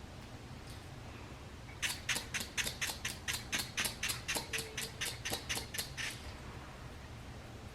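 Rapid series of short spray puffs from a hair-fiber spray applicator, about four a second for some four seconds, as fibers are sprayed onto a thin hairline.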